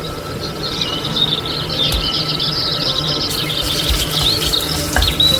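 Many small birds chirping and twittering together, their quick overlapping calls running on without a break, over a steady low hum with a few soft low thumps.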